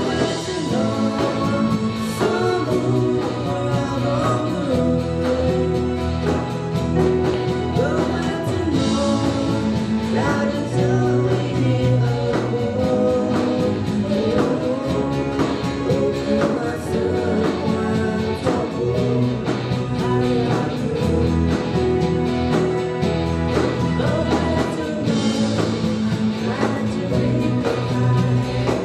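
Live singing voices performing a song with guitar accompaniment, the music continuing throughout without a break.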